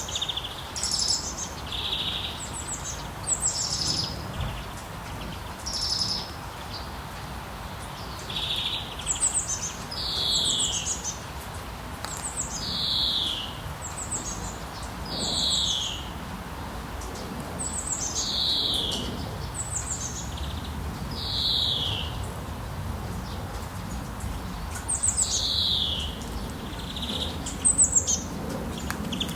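A songbird singing short, high phrases that slide downward in pitch, one every two to three seconds, over a steady hiss of rain.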